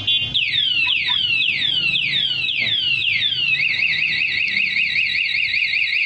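Motorcycle alarm siren from a GPS tracker alarm system fitted to a Yamaha NMAX 155, sounding continuously because the anti-theft (anti-robbery) lockout has been triggered. It plays a string of falling whoops, about two a second, then about three and a half seconds in switches to a rapid up-and-down warble.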